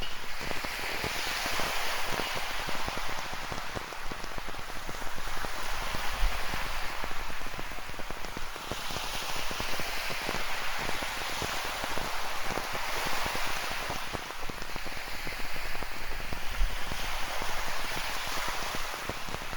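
Rain falling, with dense pattering drops, over ocean surf breaking on a rocky shore: a steady hiss that swells and eases every few seconds as the waves come in.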